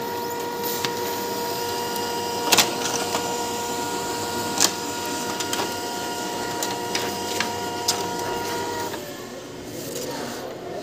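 Brother HL-1110 laser printer printing and feeding out a page: a steady motor whine with a few sharp clicks from the paper-feed mechanism, which stops about nine seconds in.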